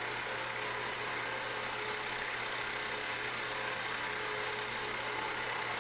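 Floor drill press's electric motor and spindle running with a steady, even hum.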